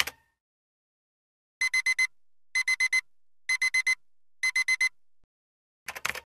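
Digital alarm clock beeping: four quick high-pitched beeps, repeated in four sets about a second apart. A brief burst of clicks near the end.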